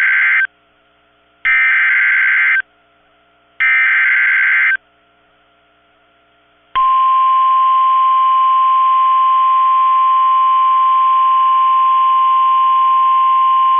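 NOAA Weather Radio emergency alert signal. It opens with three short bursts of screeching SAME digital header data, about a second each with short gaps between them. From about seven seconds in comes the steady single-pitch 1050 Hz warning alarm tone, which marks the start of a warning broadcast; here it is a severe thunderstorm warning.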